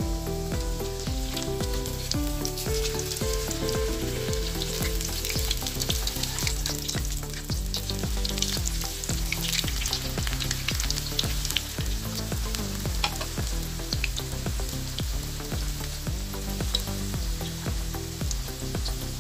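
Batter-coated towel pieces deep-frying in hot oil in a wok, a steady dense sizzle and crackle, under background music with a steady run of low notes.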